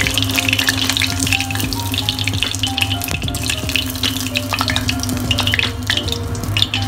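Battered chicken pieces deep-frying in hot oil in a stainless steel pot: a dense, steady crackle and sizzle.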